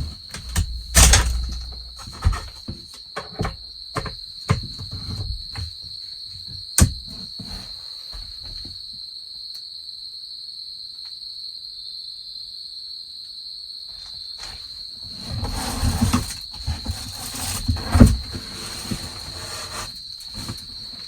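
Autumn crickets chirring in a steady, high, even tone throughout. Over them come a string of knocks and clatters from things being handled and moved, which stop for several seconds midway and return as rustling and bumps near the end.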